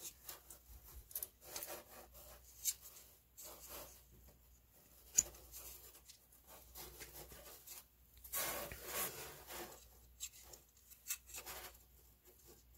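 A new furnace draft inducer motor's housing being handled and turned over in the hands: irregular rubbing and scraping, with a sharp click about five seconds in and a longer rub around eight to nine seconds in.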